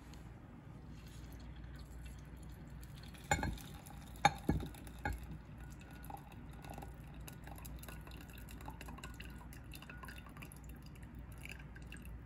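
Meat grease being poured off a baked meatloaf from a glass casserole dish into a glass measuring cup: faint trickling and dripping, with a few sharp glass clinks and knocks a little over three to five seconds in.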